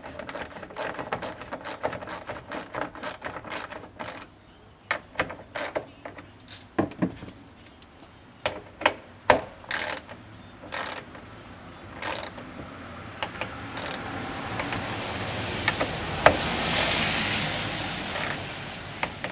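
Hand ratchet clicking in quick even runs as small fan-mounting bolts are run down onto a radiator, then scattered clicks and knocks of tool and parts. A rising hiss-like noise builds in the last few seconds.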